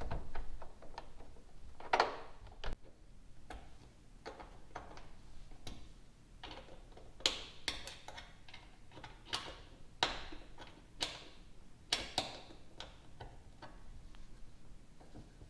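Irregular clicks and light knocks, a few seconds apart, from a plastic mud flap and its mounting hardware being handled and positioned against the truck's wheel well, with small tool and fastener contacts.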